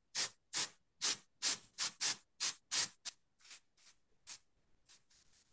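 A can of compressed-air duster fired through its red straw in a quick run of short hisses, about two or three a second, blowing alcohol ink across the paper. After about three seconds the bursts come shorter and fainter.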